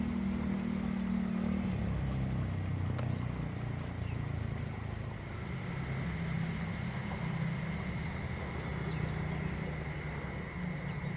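A motor engine running with a low hum that shifts in pitch, over a steady thin high whine.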